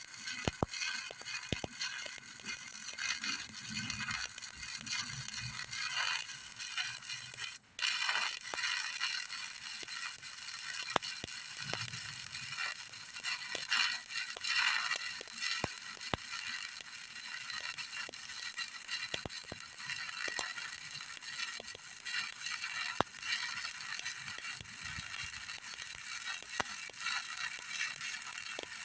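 Electric stick (shielded metal arc) welding on a vertical joint: the arc crackles and sizzles steadily with frequent sharp pops, breaking off for a moment about eight seconds in before striking again.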